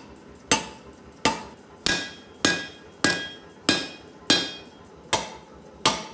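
Hand hammer striking a red-hot steel axe head on an anvil to flatten its top: about nine steady blows, roughly one every two-thirds of a second, each with a short metallic ring.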